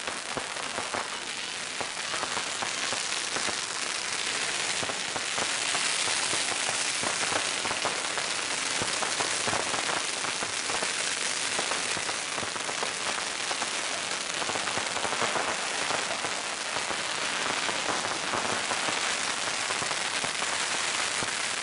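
Long strings of firecrackers going off in a dense, unbroken crackle of many small bangs, growing a little louder about six seconds in.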